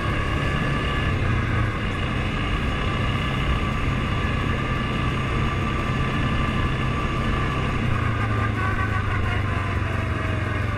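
ATV engine running steadily while the quad is ridden along at an even speed.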